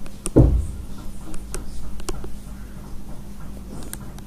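Stylus writing, a scattering of short sharp clicks as the pen taps the writing surface, with a dull low thump about half a second in and a steady low electrical hum underneath.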